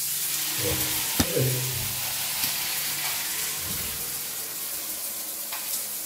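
Water spraying steadily from a filter shower head, a continuous hiss, with one sharp click about a second in.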